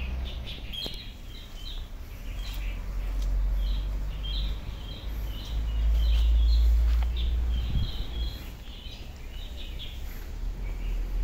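Small birds chirping repeatedly in short, quick notes over a low, uneven rumble that swells to its loudest about six seconds in.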